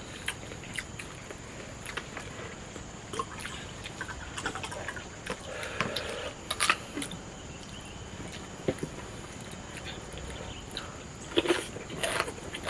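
People eating a meal: chewing with scattered small clicks and crackles of food and dishes, a few louder ones near the end.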